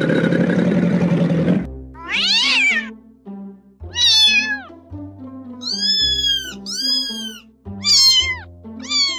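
Kitten meowing about six times, thin high calls that each rise and fall, over background music with a slow stepping low line. The first second and a half is loud harsh noise before the meows begin.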